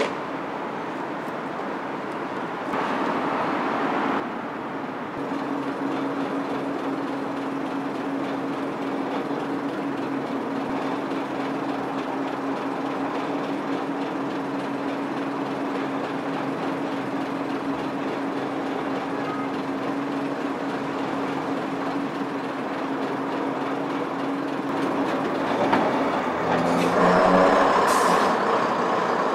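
Class 121 diesel railcar's underfloor diesel engine idling at the platform with a steady hum, then revving up near the end as the railcar pulls away, with a short hiss of air.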